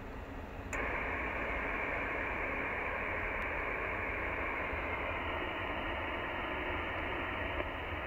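Icom IC-7600 HF transceiver's speaker hissing with 15 m band noise, cut off above about 3 kHz. The hiss steps up suddenly about three-quarters of a second in, with a click, as the radio switches from transmit to receive, and then runs on steadily.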